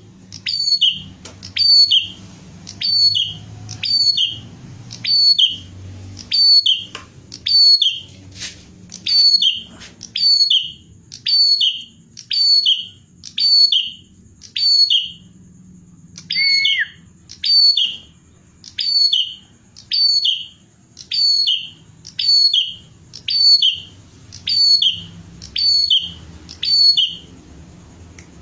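A prinia (prenjak) calling over and over, a sharp, high chirp that drops in pitch, repeated evenly at a little over one call a second, with one lower, different note about halfway through.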